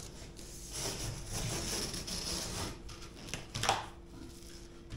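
Corrugated cardboard being cut and handled: a rasping cut for about two seconds, then a few sharp cardboard creaks and scrapes, the loudest a little before four seconds in.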